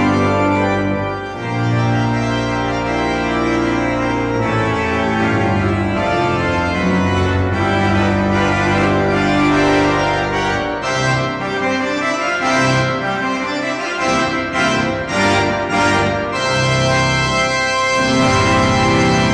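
Organ playing held chords under a moving melody, with a busier passage of shorter notes between about 11 and 16 seconds in.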